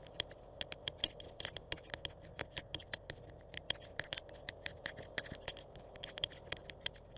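Rain pattering: irregular sharp taps of drops, several a second, over a faint even hiss.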